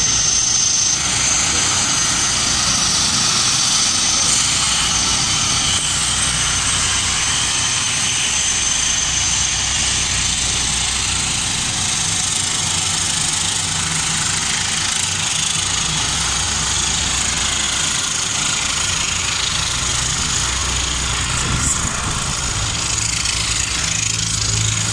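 The twin turboprop engines of a de Havilland Canada DHC-5 Buffalo running steadily as it taxis close by, with a high turbine whine over a low hum.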